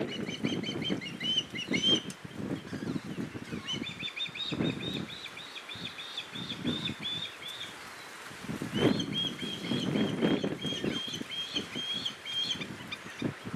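Fledgling osprey begging to be fed: three runs of quick, high, whistled chirps repeated several times a second, with gusts of wind rumbling on the microphone.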